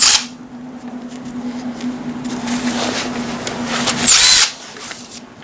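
Power drill spinning a 7 mm socket to undo an ignition-coil bolt on a 5.4 L V8, in two short bursts: one right at the start and a longer one about four seconds in.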